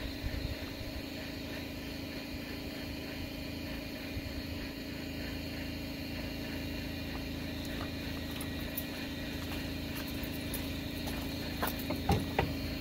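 A motor running with a steady low hum, with a few light clicks and knocks near the end.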